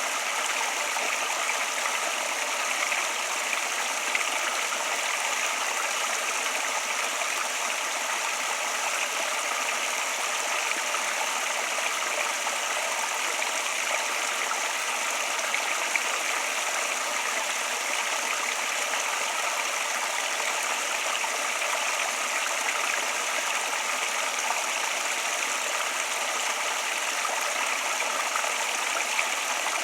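Flowing water: a steady, even rushing with no breaks or changes.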